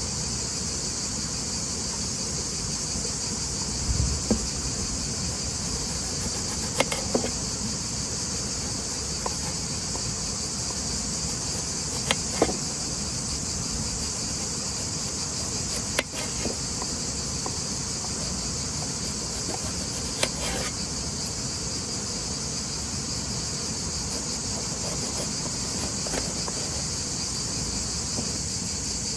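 Steady, unbroken chorus of insects chirring, with a few scattered sharp clicks and knocks.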